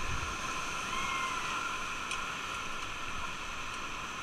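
Whitewater rapids rushing around an inflatable raft: a steady hiss of churning river water.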